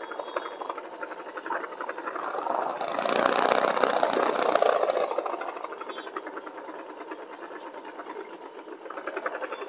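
Motorcycle engine idling in stop-and-go traffic with a rapid, even putter. About three seconds in, a louder hiss rises over it for roughly two seconds.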